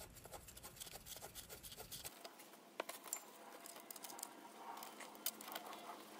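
Faint scattered clicks and a few sharper metallic ticks of small parts being handled, as bolts are fitted to a car's water pump by hand.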